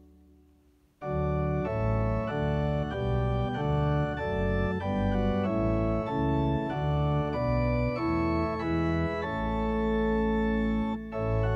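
Organ music. A held chord dies away over the first second, then a slow chordal passage begins with notes changing about every half second.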